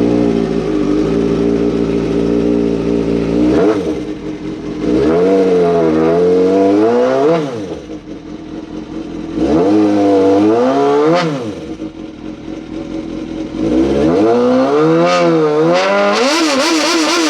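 Sportbike engine revved hard in three long bursts with lower revs between, the bike straining at a tow strap to pull a car frame straight. Its rear wheel spins on the grass without grip.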